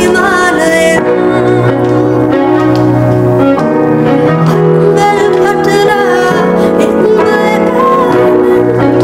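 A song sung by women's voices over instrumental backing, with sustained held notes.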